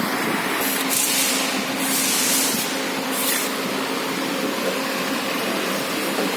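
A steady mechanical hum with a faint low tone, broken by three short hisses, about one, two and three seconds in.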